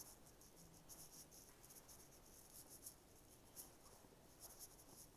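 Near silence with faint, irregular high-pitched scratching, a few short strokes a second.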